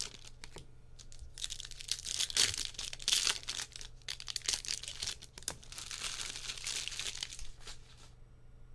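Trading-card pack wrappers being torn open and crinkled by hand, in two bouts of rustling with a few sharp crackles, stopping suddenly near the end.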